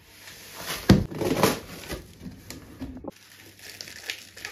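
A cardboard box of flat-pack furniture being tipped and unpacked: a sharp knock about a second in, then scraping and rustling of cardboard against laminated wooden panels, and a lighter click a couple of seconds later.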